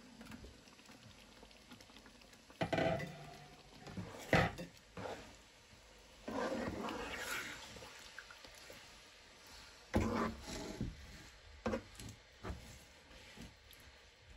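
A spatula stirring and scraping thick chicken curry in a nonstick pan, with clatter and several sharp knocks of the utensil against the pan.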